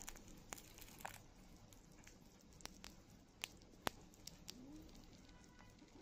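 Sugar glider chewing a dead cicada: faint, scattered crackles and clicks of the insect's shell being bitten, the loudest about four seconds in.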